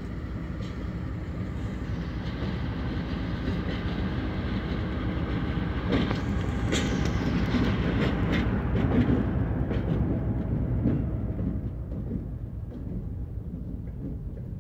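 Finger Lakes Railway diesel locomotive running as it comes close and passes, growing louder to a peak past the middle and then fading as the freight cars roll by. Its wheels click over the rail joints as it goes past.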